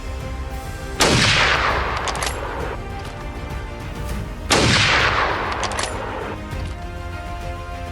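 Two loud rifle-like gunshots about three and a half seconds apart, each sudden and followed by a long fading echo, over background music.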